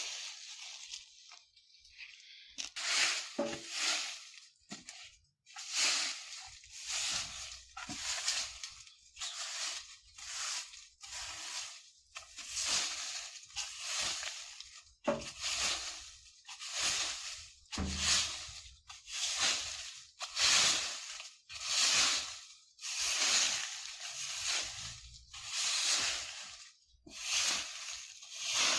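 A broom sweeping fallen leaves on the ground in rustling strokes, a little more than one a second, after a short pause at the start.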